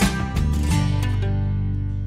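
Background music closing out: a few last notes, then a final chord held about a second in that rings on and slowly fades.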